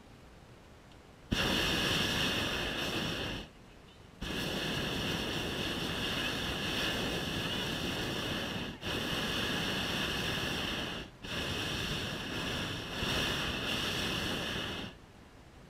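Hot-air balloon propane burner firing: a loud, even rushing hiss that cuts in sharply about a second in, stops for under a second, then runs on through two very brief breaks before shutting off near the end. Each burst is a burn heating the air in the envelope.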